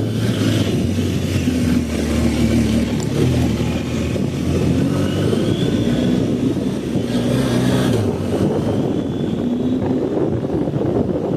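BMW R 1250 GS boxer-twin engine running under load, rising in pitch twice as it accelerates, about halfway through and again near the end, with wind noise on the microphone.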